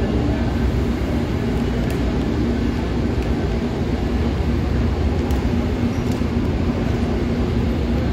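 Steady rumble and hum of a Virginia Railway Express commuter train standing at the platform, with a few faint clicks.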